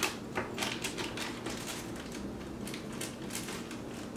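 Irregular light clicks and ticks of hands handling ingredients and utensils at a kitchen counter, over a faint steady hum.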